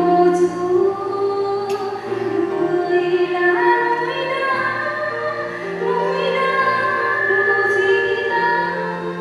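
A woman singing a slow liturgical chant into a microphone, with long held notes over sustained low accompanying notes.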